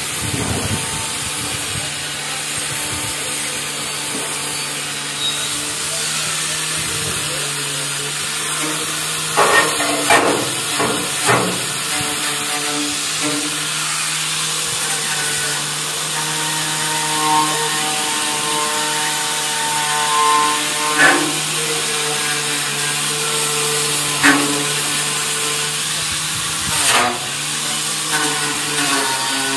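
A handheld power tool running steadily as rust is cleaned off a tricycle sidecar's steel frame, with a few sharper knocks or scrapes against the metal.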